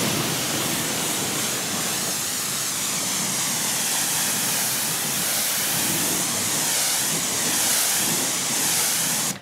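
Jet of water from a Kranzle K7 pressure washer blasting against a car's front bumper and bonnet, a steady loud hiss of spray and splashing.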